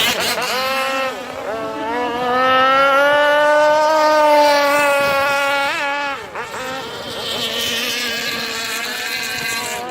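Small two-stroke petrol engine of a radio-controlled power boat with a can-type tuned exhaust, running hard at high revs. Its pitch climbs and falls as the throttle changes, with a brief drop about six seconds in before it winds up again.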